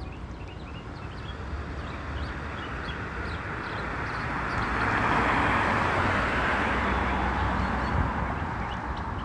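A songbird singing short, quick chirping notes over and over, over the low rumble of city traffic. In the middle a passing vehicle swells louder, then fades.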